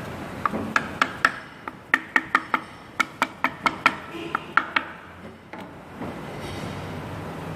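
A run of about sixteen sharp metallic clicks or taps, about four a second in loose groups, from hand work on engine parts during assembly.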